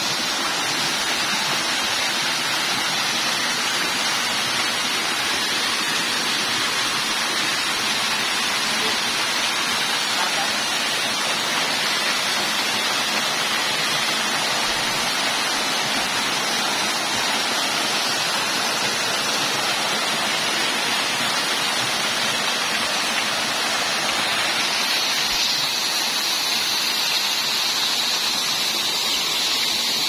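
Small waterfall, with a low flow in dry weather, pouring steadily into a rocky pool: a continuous, even splashing hiss.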